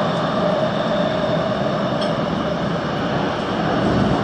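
Busan Metro Line 3 train running through a tunnel: a steady rumble of wheels and running gear on the track, with a faint steady hum.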